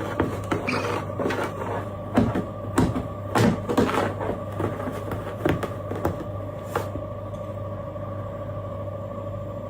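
A steady electrical or motor hum, with irregular knocks and clattering over it for the first several seconds that then die away.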